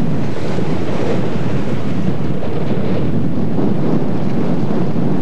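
Steady wind buffeting the microphone on a sailboat under way, with the rush of the sea beneath it.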